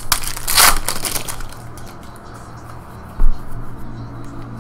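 Foil wrapper of a baseball card pack crinkling loudly as it is pulled off the cards about half a second in, then softer rustling of cards being handled. A short, heavy low thump a little over three seconds in.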